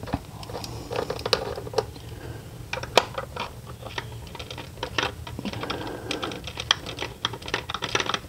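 Socket ratchet clicking in short, irregular runs as the upper intake plenum bolts are backed out, with a sharper metal click about three seconds in.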